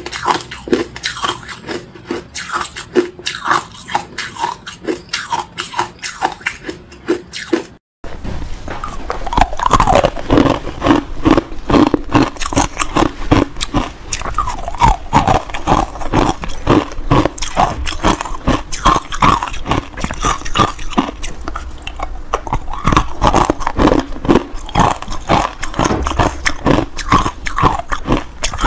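Ice cubes coated in matcha powder being bitten and chewed close to the microphone: a dense, fast run of sharp crunches. Just before eight seconds in the sound cuts out for an instant, and the crunching then resumes louder.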